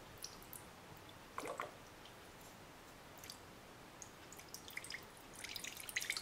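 Alcohol dripping and splashing as it is flushed over an iPhone 4S logic board to rinse off cleaning residue. It starts with a short splash about a second and a half in, then turns into faint scattered drips that quicken near the end.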